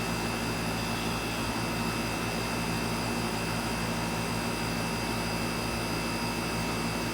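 Miller air conditioner running steadily: an even rushing noise of moving air over a low hum, with a few steady higher tones and no change in speed.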